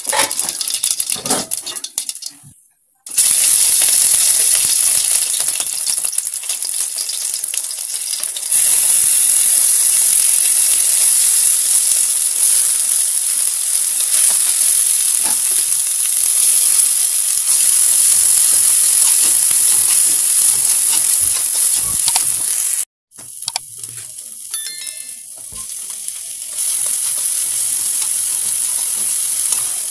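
Hot oil sizzling in a non-stick pan as mustard seeds and then chopped onions, green chillies and curry leaves fry, with a spatula stirring through them. The sizzle is loud and steady, and cuts out briefly twice, at about three seconds and again around twenty-three seconds.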